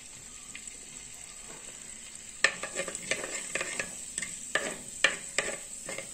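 Mustard seeds sizzling in hot oil in an earthen clay pot. About two and a half seconds in a spatula starts stirring them, and sharp knocks and scrapes against the pot mix with the popping of the seeds.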